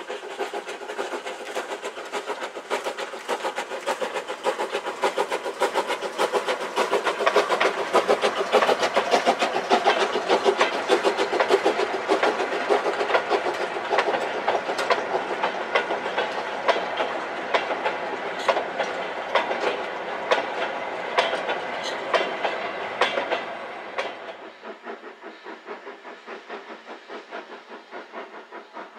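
Steam saddle-tank locomotive hauling a train of coal wagons past, the wagon wheels clicking over the rail joints in a quick, even rhythm that is loudest about ten seconds in. A few seconds before the end the sound drops suddenly to a fainter, more distant train.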